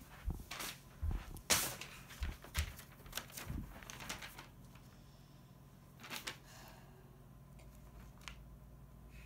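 Sheets of paper being handled and flapped, rustling and crackling with a few soft knocks, mostly in the first four seconds and once more about six seconds in.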